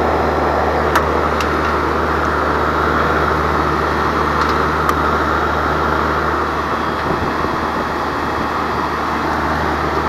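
Outdoor R22 air-conditioning condensing unit running steadily close by: a low hum under an even rushing fan noise, with a few faint clicks.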